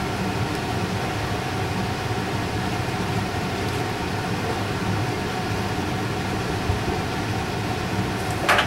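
Steady machine hum with a few held tones, like a running fan, and a short clatter near the end.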